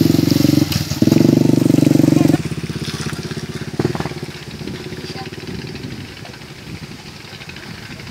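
Small underbone motorcycle's engine running close by and pulling away: loud and steady for about two seconds, with a brief dip just under a second in, then dropping and fading as the bike rides off up the road.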